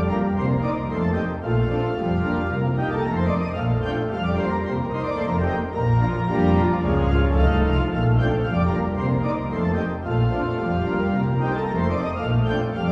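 Background music: sustained chords over a bass line that changes note about every half second.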